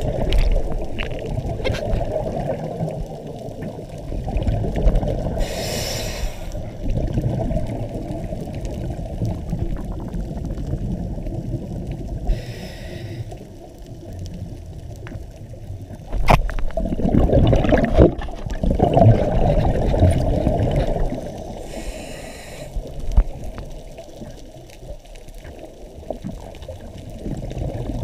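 Scuba diver breathing through a regulator underwater: three short hissing inhalations several seconds apart, with rushing, gurgling exhaled bubbles between them, the loudest burst lasting about four seconds past the middle.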